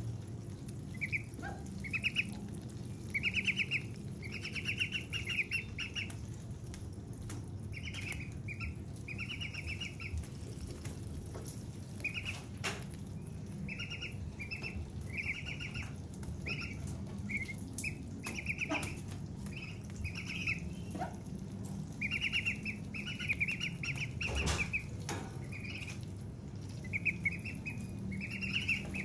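White ducklings peeping in quick runs of short, buzzy calls, on and off throughout, while they peck at a piece of watermelon held out by hand. A few sharp clicks sound among the calls.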